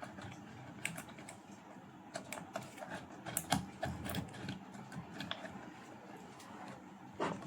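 Irregular light clicks and taps of hands and small tools working on a home theatre amplifier unit as it is reassembled, with the clicks coming in quick clusters around the middle.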